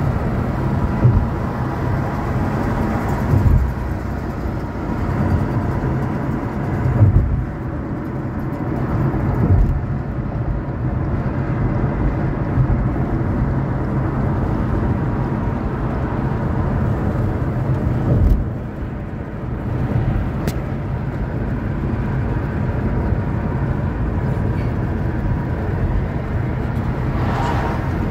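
Car driving at road speed, heard from inside the cabin: steady engine and tyre rumble, with a few brief low thumps.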